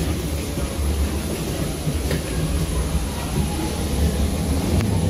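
Steady low mechanical rumble of airport ground machinery at a parked airliner's boarding door, with a few faint clicks.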